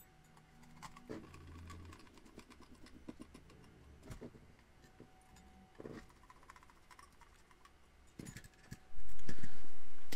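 Light clicks, taps and small metallic knocks of screws and a hex driver working an aluminium chassis plate onto an RC buggy. About nine seconds in, a sudden loud low sound starts and slowly fades.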